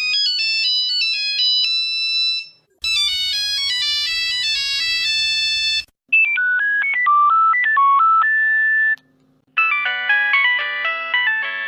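Ringtones of the old and new Nokia 3310, played one after another in four short snippets of about three seconds each, each cut off abruptly. The first is a thin melody of single high notes; the later ones are fuller, with a steady low hum under the third and several notes sounding together in the fourth.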